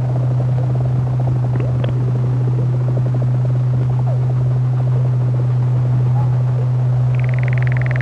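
Eurorack modular synthesizer sound design meant as deep-ocean ambience. A steady low drone sits under a crackle of small clicks and short chirps. A high, buzzing, pulsing call enters about seven seconds in and dips slightly in pitch.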